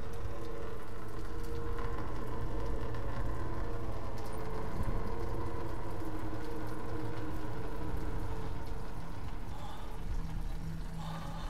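Steady ambient drone of a film soundtrack: several held low tones over a soft hiss, easing off slightly near the end.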